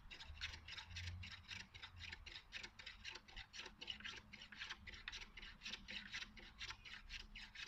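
Small hand plane shaving an oak dowel in quick, short strokes: a faint, even scrape about four times a second.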